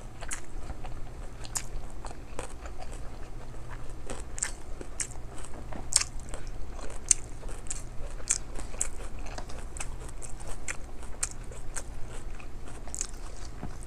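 Close-up chewing of rice and mussels, with many short, irregular mouth clicks throughout.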